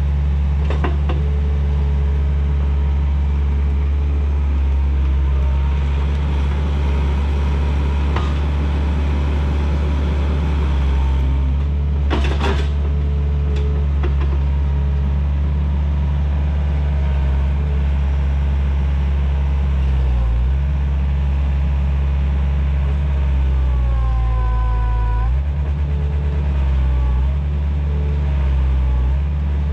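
Takeuchi TL130 compact track loader's diesel engine running steadily under load, with a sharp crack about twelve seconds in and a brief falling squeal near the end.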